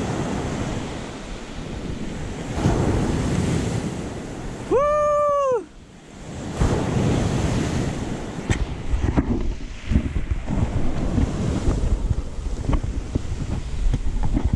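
Ocean surf washing on the shore, with wind buffeting the microphone. About five seconds in, a person gives one short, loud vocal cry that rises then falls in pitch. A few sharp clicks follow later.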